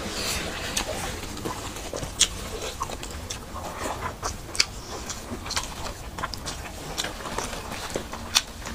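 Two people eating fried rice and egg curry with their hands: close-up chewing, with many short, sharp mouth clicks and smacks and a few louder ones.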